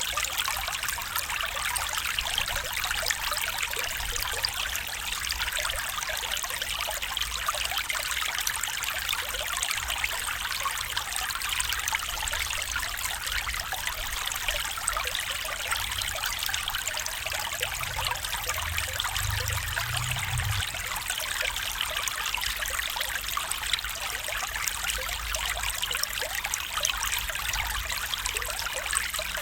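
Stream water flowing steadily, an even running-water sound, with a faint low rumble about two-thirds of the way through.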